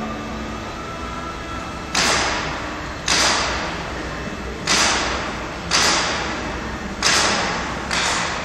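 Hand-held paint spray gun hissing in six short bursts, each starting sharply and tailing off over about a second, beginning about two seconds in. A steady low hum runs underneath.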